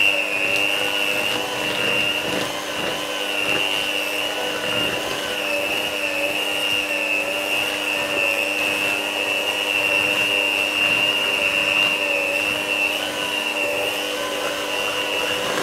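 Electric hand mixer running steadily with a high motor whine, its beaters turning through chocolate cake batter.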